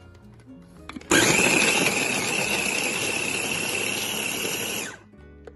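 Electric mini food chopper running in one burst of about four seconds, its blade crushing onion, fresh coconut, green chili and spices into a coarse masala paste. The motor starts suddenly about a second in and cuts off abruptly.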